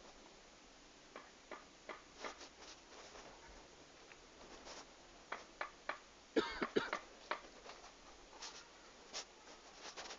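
Scattered light clicks and taps at an irregular pace, with a brief louder cluster of clicks a little past the middle.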